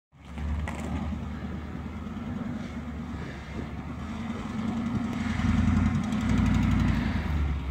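Ford pickup truck's engine running as it crawls over rough dirt, a low rumble that grows louder in the second half and eases off near the end.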